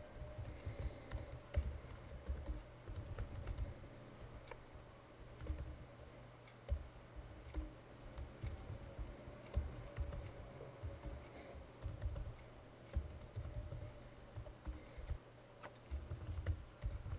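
Typing on a computer keyboard, key presses coming in irregular bursts separated by short pauses.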